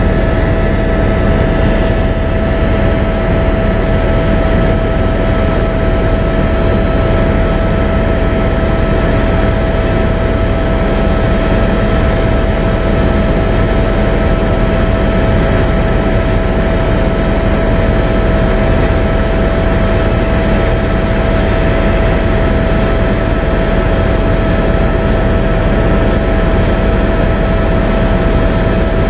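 Steady, loud aircraft engine and airflow noise with a constant high whine, as heard aboard a chase aircraft flying alongside a jet. A couple of fainter, higher tones drop out a few seconds in.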